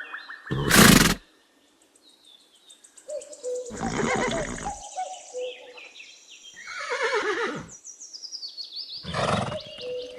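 Horse neighing: several whinnies with wavering, falling pitch, after a loud noisy burst about half a second in. Birds chirp faintly in the background.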